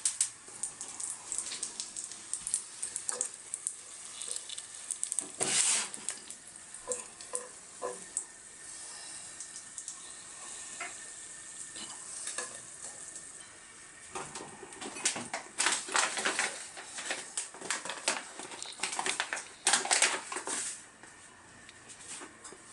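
Food sizzling in a frying pan, with a utensil scraping and knocking against the pan in bursts of stirring, loudest about a quarter of the way in and again near the end.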